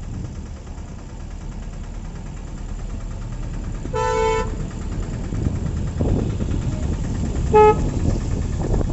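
Vehicle horn sounding twice, a half-second toot about four seconds in and a shorter, louder toot near the end, over steady low background noise.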